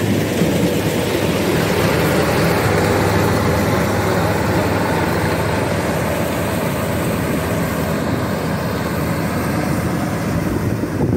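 Kubota DC-93 rice combine harvester running steadily under load as it cuts and threshes ripe rice: a loud, continuous engine and machinery noise.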